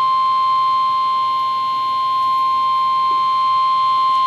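NOAA Weather Radio 1050 Hz warning alarm tone: one steady, loud single-pitched tone, the signal that a warning message is about to follow.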